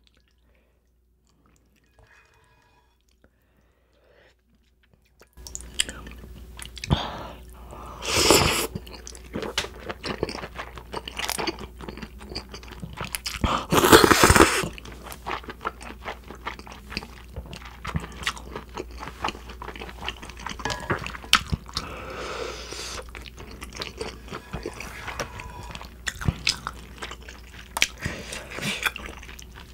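Near silence for about five seconds, then close-up eating of cold naengmyeon noodles: steady chewing with small wet clicks, and two loud slurps, one about eight seconds in and a longer one about fourteen seconds in.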